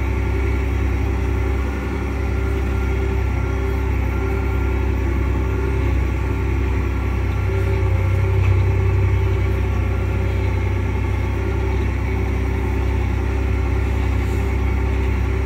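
Cummins diesel engine of a Versatile 365 tractor running under way, heard from inside the cab as a steady low drone, swelling slightly about eight seconds in.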